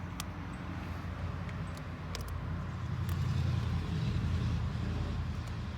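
Low steady rumble of a motor vehicle, swelling louder for a couple of seconds around the middle, with a few light clicks of handling.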